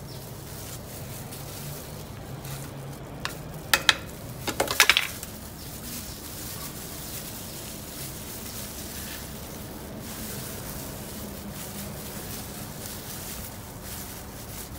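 Crackling and rustling of thin plastic gloves and potting soil as gloved hands firm the soil around a freshly planted aloe vera, with a few sharp crackles about four to five seconds in.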